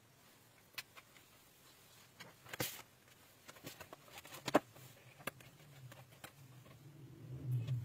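Pages of a wipe-clean activity book being handled and turned: a short brushing rustle about a third of the way in and a sharp click a little past halfway, with a few fainter taps around them. A low hum comes up near the end.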